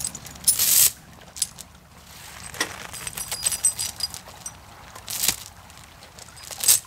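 Steel chain being handled and shaken out, clinking and rattling in several sharp bursts, with a ringing jingle of links about three seconds in.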